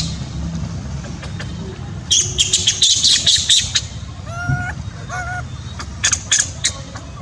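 Animal calls: clusters of sharp, high squawking calls about two seconds in and again near the end, with two short calls between them that rise and then hold. A steady low hum runs underneath.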